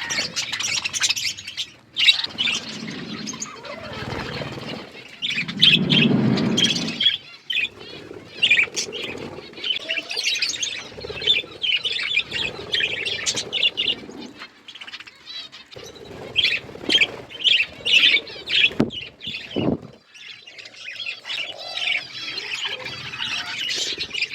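A flock of budgerigars chirping and chattering without pause, with a low rustle about a quarter of the way through and a few sharp clicks near the end.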